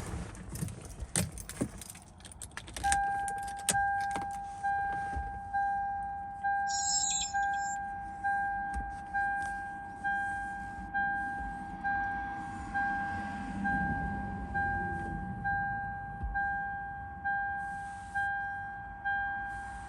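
A few clicks and rattles of keys, then a Lexus LX470 / Land Cruiser 100 dashboard warning chime starts about three seconds in and repeats steadily, one fading two-tone ding about every second.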